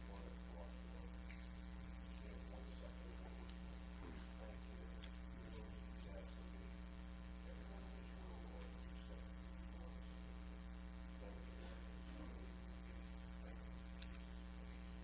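Steady electrical mains hum, with a faint, indistinct voice far from the microphone underneath it.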